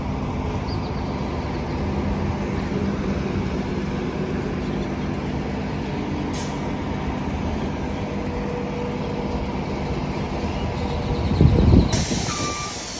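Street traffic rumble with a heavy vehicle's engine running steadily, swelling to a loud rush of noise about eleven seconds in.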